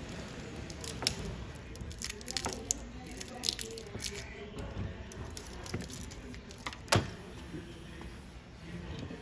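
Scattered clicks and knocks of tools and parts being handled during battery replacement work on a ball machine, with two sharper clicks about a second in and about seven seconds in.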